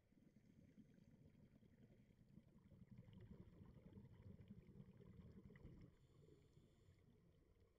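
Near silence: a faint, muffled low rumble of water noise picked up underwater through a camera's housing, swelling a few seconds in and easing off near the end.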